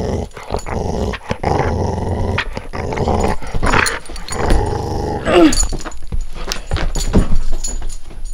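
English Springer Spaniel growling in long rough stretches, broken by short pauses, while tugging at a toy in play, with a short falling whine about five seconds in.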